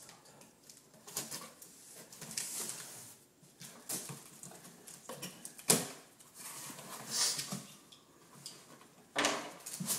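Packing tape on a cardboard box being slit open with a small blade: irregular scratching and tearing of tape and cardboard, with a sharp click about halfway through.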